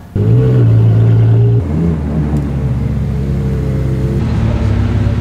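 Ferrari 812 Competizione's 6.5-litre V12 running loud and steady at a high idle. After about a second and a half it settles to a lower, steady engine note.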